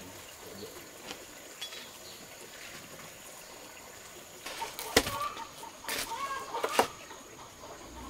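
Chickens clucking for a few seconds from about halfway through, with two sharp knocks among the calls, the first the loudest sound.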